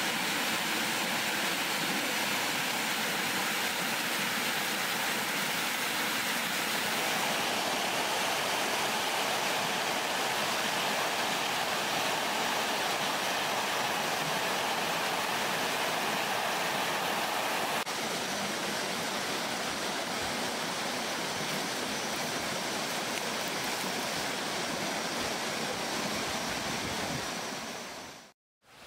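Waterfall rushing and splashing down over rocks, a steady roar of water. It drops a little in level about two-thirds of the way through, then fades out just before the end.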